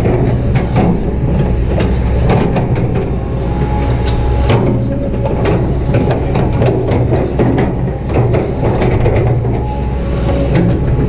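Kobelco SK200-8 excavator's diesel engine running steadily under working load, with frequent short knocks and rattles from the machine as it works.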